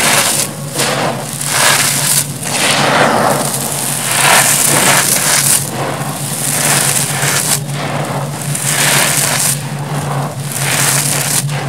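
Dry crumbled concrete scooped by hand and poured through the fingers back onto a pile: a gritty, crackling trickle of falling granules, with crunching as the hands dig in again. It comes in repeated swells every second or two.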